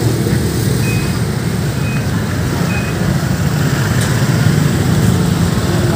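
A motor vehicle engine running steadily, with three short high beeps about a second apart in the first three seconds.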